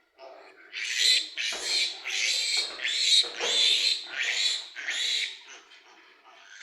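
Piglet squealing over and over in loud, high-pitched screams, about two a second, fading near the end.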